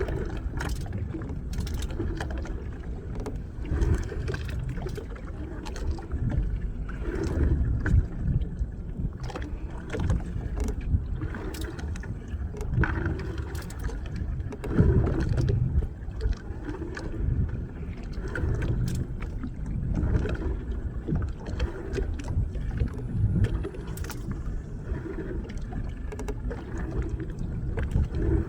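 Small fishing boat at sea: a steady low rumble of engine and water that swells and falls every second or two, with scattered knocks and clatters.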